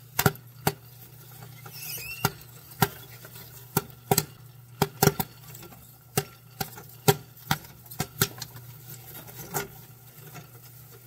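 Popcorn kernels popping in the heated kettle of a Princeton Popper popcorn machine: sharp, irregular pops about two a second, over a steady low hum. The popping has thinned out, a sign that the batch is nearly done.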